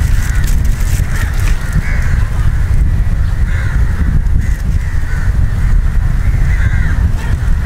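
A heavy, steady rumble of wind on the microphone, with a bird calling again and again throughout.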